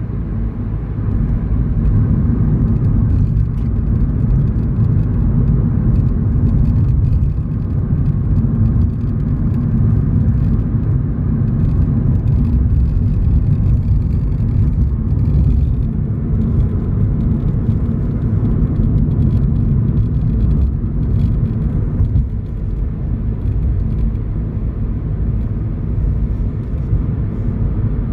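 Inside the cabin of a Suzuki Swift Sport: a steady low engine and road rumble, with faint scattered light clicks of a rattle from around the dashboard. The owner can't identify the rattle and says it is not engine knock.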